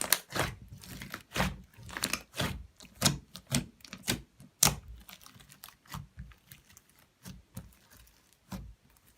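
Slime being squeezed and poked by hand, giving irregular crisp clicks and air-bubble pops, several a second, thinning out in the second half.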